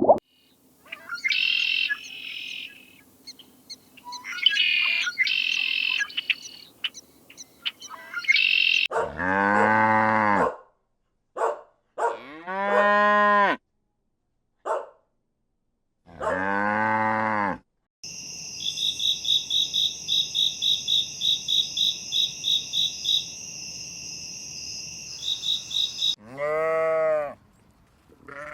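Small birds chirping in short bursts, then cattle mooing: three long calls that rise and fall in pitch. After that comes a fast, evenly repeated high chirping, about three a second, and near the end one more long animal call.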